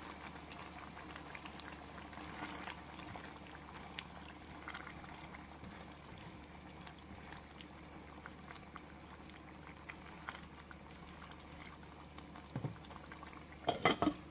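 Pork mechado stew simmering in a nonstick pot, with faint bubbling and a silicone spatula scraping through it as it is stirred. Near the end a glass lid is set on the pot with a quick knock and a few clattering clinks.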